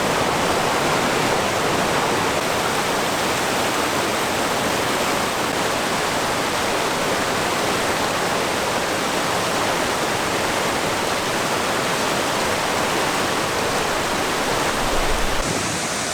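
Fast mountain stream rushing steadily, running high with snowmelt runoff. A brief low rumble comes near the end.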